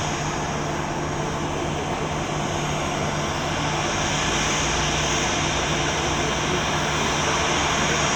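Boeing 737-800's CFM56-7B jet engines running, a steady noise that grows a little louder about halfway through.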